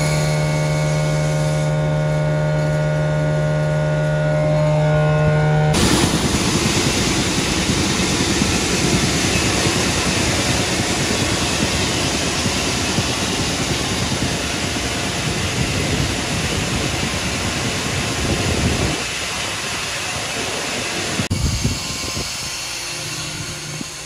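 A grain dryer's fan running with a steady hum, then, after about six seconds, shelled corn pouring through a steel dump-pit grate in a loud, even rush that drops off about nineteen seconds in.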